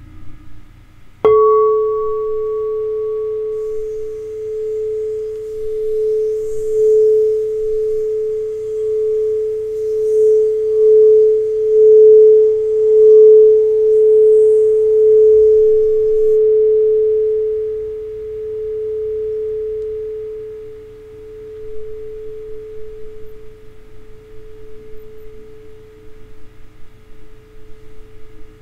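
Crystal singing bowl tuned to A (432 Hz) struck once with a striker about a second in, then ringing as one pure, steady tone that swells and wavers in loudness before slowly dying away in the last few seconds.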